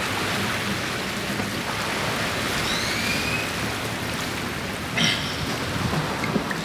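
Steady wash of small waves breaking over a rocky shore, heard as an even hiss, with a brief rustle about five seconds in.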